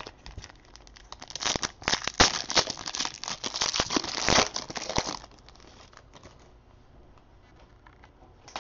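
Foil wrapper of a trading card pack crinkling as it is torn open and the cards are pulled out, loudest from about one and a half to five seconds in, then only faint handling.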